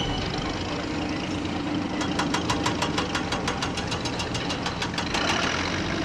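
Heavy construction-machine diesel engine running steadily. From about two seconds in to about five seconds in there is a rapid, even clatter of about seven or eight ticks a second.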